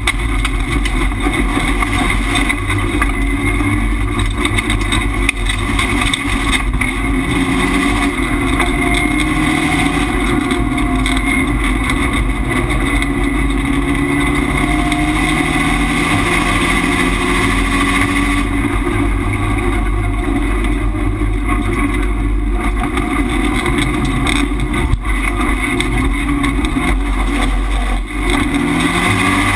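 Subaru Impreza rallycross car's flat-four engine, heard from inside the stripped race cabin, running hard under race load. Its pitch rises and falls with throttle and gear changes, with a few brief knocks.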